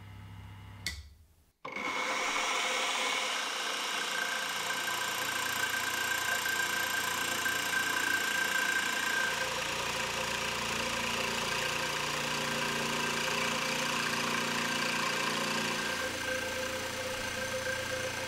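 Milling machine running with a spiral end mill cutting into a wooden cleaver handle: a steady motor whine under the noise of the cut. It starts about two seconds in, after a short click and a moment of silence.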